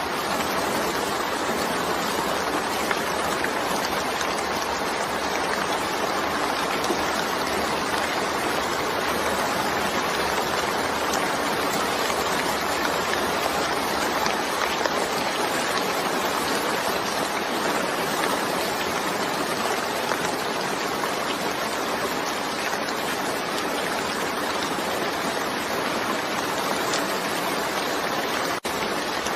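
Steady heavy rain, an even hiss with no single drops or thunder standing out. The sound cuts out for an instant near the end.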